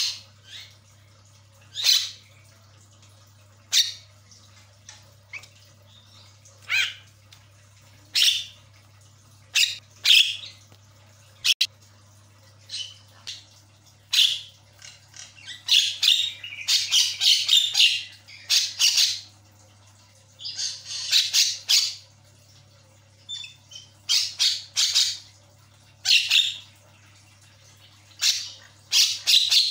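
Javan myna giving short, harsh calls every second or two, with longer runs of rapid chatter about halfway through, over a faint steady low hum.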